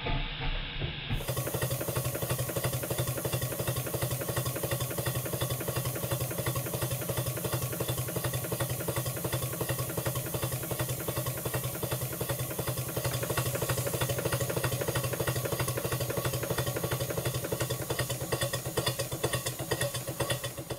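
Stuart 5A twin-cylinder model steam engine running steadily with a fast, even beat, starting about a second in. The engine is being run in on its freshly rebuilt big-end brasses.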